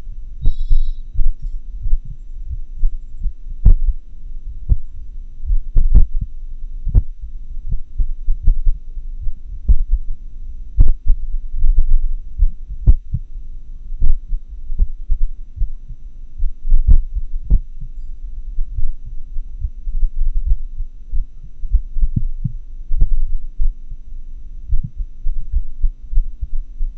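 Heart sounds of a patient in atrial fibrillation, picked up by a homemade funnel microphone on the chest: low beats that come at uneven intervals, the irregular rhythm of atrial fibrillation.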